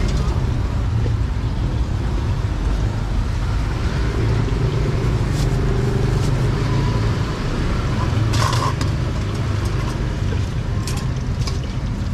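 Steady low rumble of motor traffic in a busy street market, with a few short clatters.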